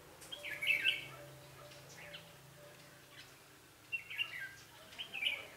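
Red-whiskered bulbul singing in short, chirpy phrases: the loudest about half a second in, then shorter ones about two, four and five seconds in.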